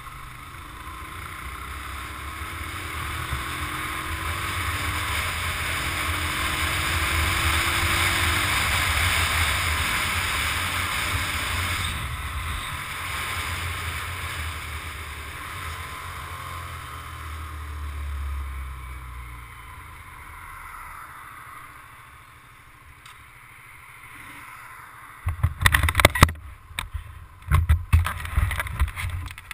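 Wind rushing over the camera microphone of a moving motorcycle, swelling to its loudest about a third of the way in and easing off as the bike slows. Near the end, a run of loud, irregular thumps.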